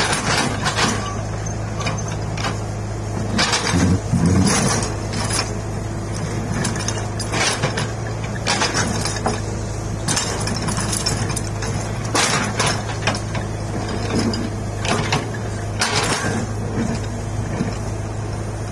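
Komatsu PC75 hydraulic excavator's diesel engine running steadily under digging load, with the steel bucket repeatedly scraping and knocking through rocky soil in short loud bursts.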